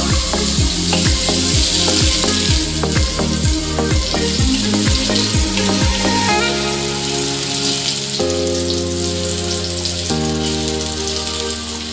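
Minced garlic sizzling in hot oil in a wok as it is stirred with a wooden spatula, a steady hiss. Background music plays underneath, with a regular beat that gives way to held chords about six seconds in.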